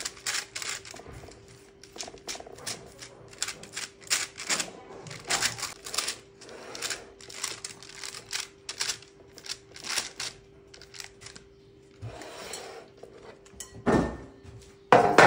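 Hands patting and pressing soft pide dough flat on baking paper in a metal pan: irregular soft slaps and paper crackles, a few a second. A couple of louder knocks near the end.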